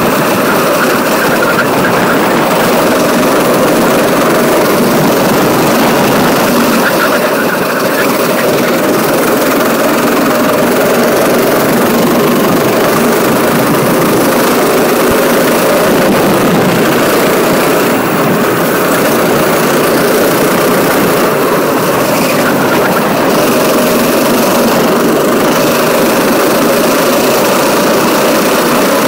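Go-kart engine running steadily at speed, heard loud and close from the driver's seat.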